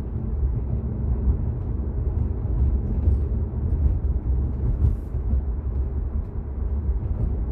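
Steady low rumble of road and tyre noise inside the cabin of a Tesla Model 3 driving along, with no engine sound since the car is electric. A faint click about five seconds in.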